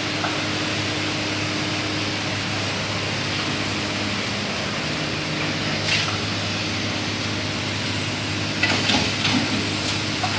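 A steady mechanical hum over an even hiss, with a few brief crackles or knocks about six seconds in and again near the end.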